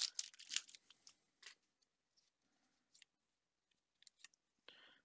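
Faint handling of Magic: The Gathering trading cards: a few short clicks and rustles in the first second and a half as cards are shifted and set down, then a few faint ticks.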